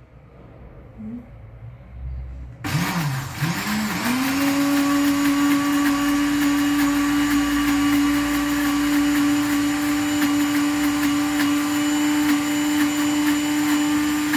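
Electric blender (a Moulinex) switched on about three seconds in: the motor wobbles up to speed, then runs steadily, grinding a wet paste of soaked raisins and sesame seeds.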